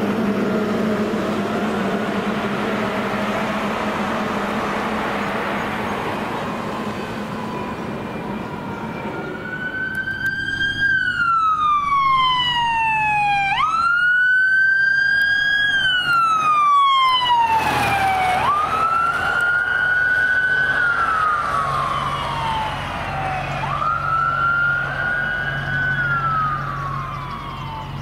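A fire engine's engine and road noise passing for the first several seconds, then an electronic emergency siren on the EMS supervisor's Ford SUV wailing: each cycle a quick rise and a long slow fall, about every four to five seconds, over the low hum of the engine.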